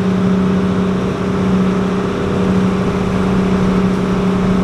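Outrigger boat's engine running at a steady speed, a constant hum that holds one pitch, with water rushing and splashing against the hull and bamboo outriggers.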